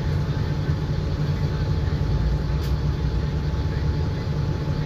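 Mercedes-Benz O-500M bus engine running steadily, a low rumble. There is a brief click about two and a half seconds in.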